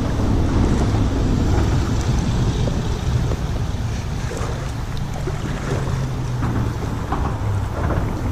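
Thigh-deep creek water sloshing and churning around wading legs, over a steady low rumble.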